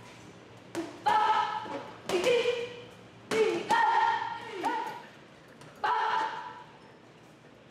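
Punches landing on hanging heavy bags: about eight sharp hits in quick, irregular combinations, each followed by a short ringing tone that fades within about half a second.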